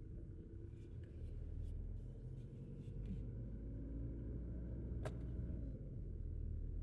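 Mazda3 engine idling steadily at a raised idle speed, a low even rumble: the engine is running its purification cycle, which the owner found normal, not a fault. A single sharp click about five seconds in.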